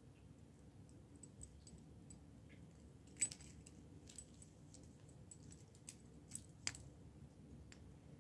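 Faint, scattered metallic clicks and clinks from the polished stainless steel link bracelet of a large Invicta Venom Hybrid watch as it is turned over in the hand, the sharpest click about three seconds in.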